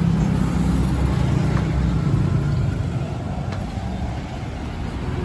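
Road traffic running past: a motor vehicle's low engine rumble, strongest over the first few seconds and then easing off.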